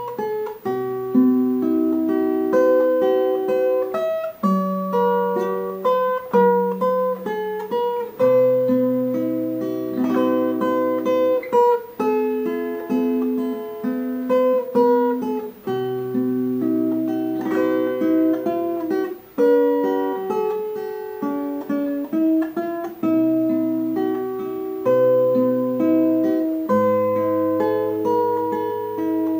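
Background music on acoustic guitar: single notes picked one after another over lower bass notes.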